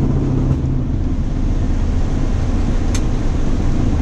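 Boeing 737-800 flight-deck noise during the takeoff roll and rotation: the CFM56-7B engines at takeoff power and rushing air make a loud, steady rumble. A low hum stops about a second in, and a single sharp click is heard about three seconds in.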